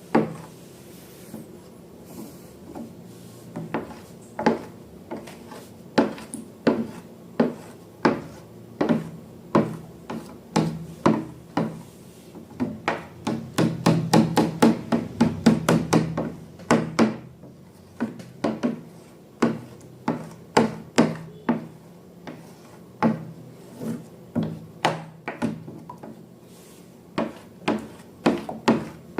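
Slime being worked by hand, making a run of sharp sticky clicks and pops that come faster and louder about halfway through.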